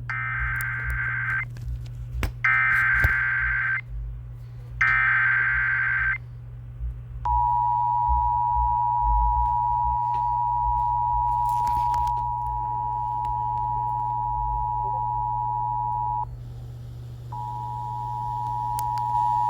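Emergency Alert System header: three short bursts of screeching digital data tones, then the two-tone attention signal sounding steadily for about nine seconds, breaking off briefly and starting again near the end. A steady low hum runs underneath.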